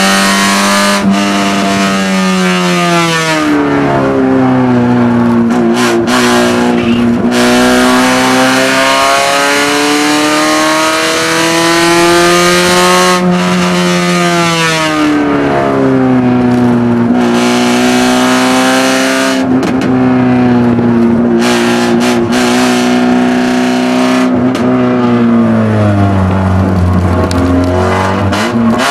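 Small race car's engine heard from inside the cabin while lapping a circuit, its note climbing under acceleration and dropping sharply several times as the driver lifts and shifts for the corners.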